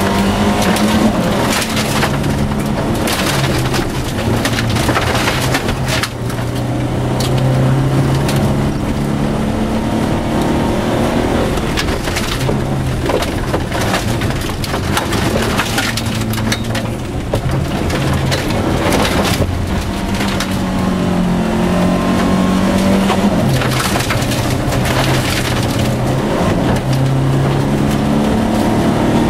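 Volvo 242 rally car heard from inside the cabin, driven hard on a gravel stage: the engine revs rise and fall again and again through gear changes, while gravel crunches and stones clatter against the underbody.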